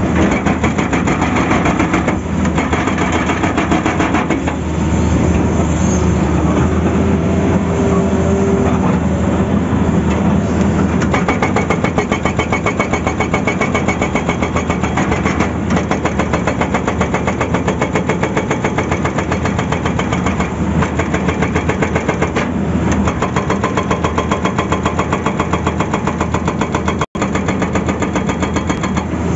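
Hydraulic rock breaker on a Tata Hitachi excavator's arm hammering its chisel into rock in a fast, steady pounding, over the excavator's diesel engine working under load.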